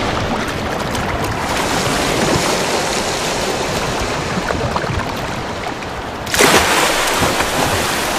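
Sea water washing and surging steadily, then a sudden loud splash about six seconds in as a breaching orca lands back in the water.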